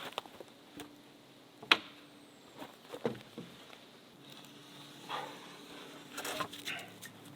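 Light footsteps and scattered clicks and rustles, with one sharp knock a little under two seconds in, over a faint steady hum.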